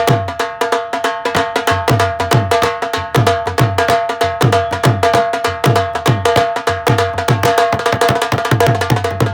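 Dhol played in a fast, continuous rhythm to check its tone. Deep bass strokes that drop in pitch after each hit mix with quick, sharp treble strokes that ring with a steady pitch.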